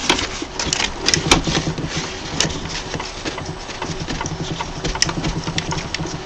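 Cloth rubbing and rustling as it wipes the inside of a resin printer's housing clean of fingerprints, with irregular small clicks and knocks from hands handling the printer parts.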